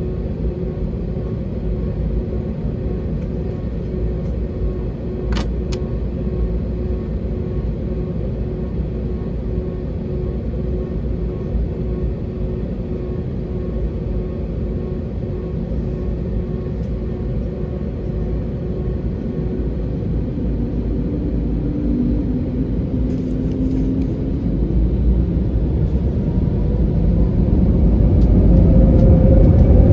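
Jet airliner cabin noise heard from a window seat beside the wing as the aircraft taxis: engines running steadily with a low rumble and a steady hum. Over the last few seconds the engine noise grows louder with a rising tone as thrust is increased. Two short clicks sound about five seconds in.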